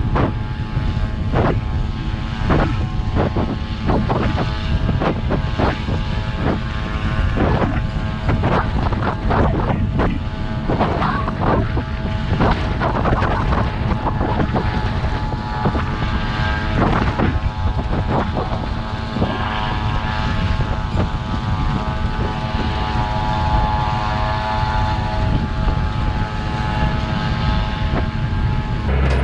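Engine of heavy farm machinery running steadily with a low rumble, overlaid by frequent knocks and rattles through the first two-thirds, which thin out later on.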